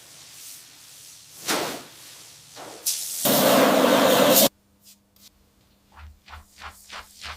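A spray hiss lasting about a second, cut off suddenly, as in spraying paint or cleaner during a restoration. Near the end, short scraping or brushing strokes start, about three a second.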